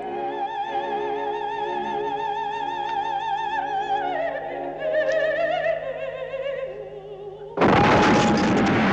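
A woman singing opera in long sustained notes with wide vibrato. About seven and a half seconds in, a loud bomb explosion breaks in suddenly and drowns the singing.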